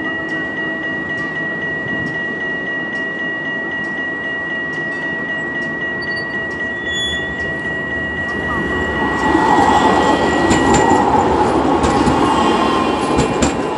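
Electric low-floor city tram approaching on its rails and passing close by: a wide rumble of wheels on track swells about eight and a half seconds in, stays loudest for a few seconds, then eases off. A steady high whine and regular faint ticks, a little over one a second, run underneath; the whine stops about eleven seconds in.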